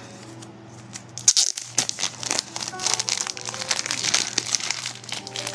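Packaging crinkling and rustling as a package of trading cards is pulled open and handled, starting about a second in and running as a rapid crackle. Faint background music plays underneath.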